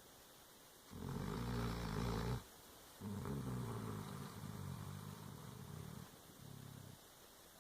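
Dobermann snoring in her sleep: one snore of about a second and a half, then after a short pause a longer run of snoring that grows fainter toward its end.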